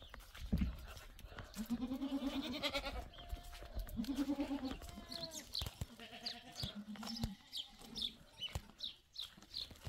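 Goats bleating: three long, wavering calls in the first three quarters, with a thump near the start and a quick run of short high chirps through the second half.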